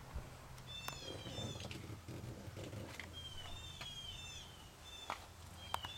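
A bird chirping: short, falling, high chirps in quick runs of two or three, repeated several times, over a low steady hum and a few faint clicks.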